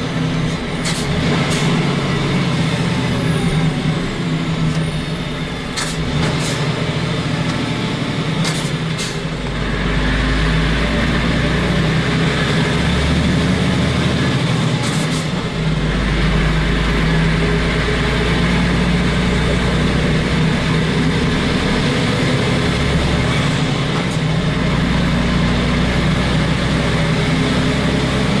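Heavy truck's diesel engine pulling steadily on the road, heard from inside the cab with the roof hatch open. A deep rumble swells in about ten seconds in and holds, and a few short sharp hisses or clicks come in the first half.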